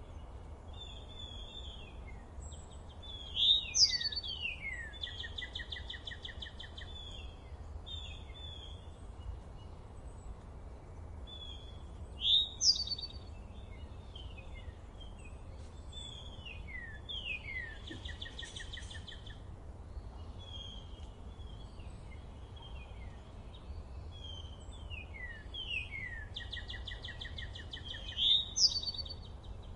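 Songbirds singing, with many short chirps and trills and three louder phrases of quick falling whistles, over a steady low background rumble.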